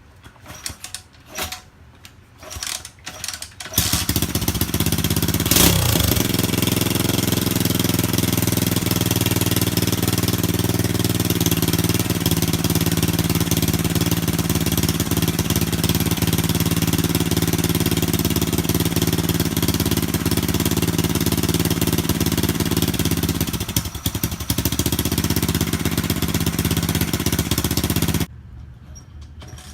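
Lifan 125cc single-cylinder minibike engine in a Honda Z50R frame: a few knocks, then it starts about four seconds in and runs at a steady idle, dipping briefly near the end before it shuts off.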